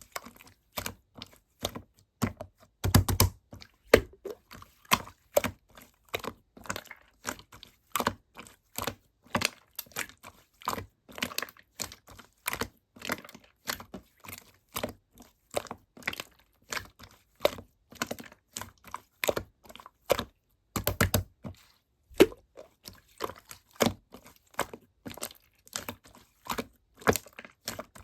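Slime being squished and pressed by hand, giving a continuous run of small sticky clicks and pops, with two quick flurries of crackling.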